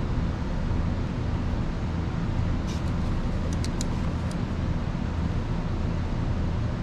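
Steady low machine hum of the workshop background, with a few light clicks about halfway through from small parts being handled during reassembly.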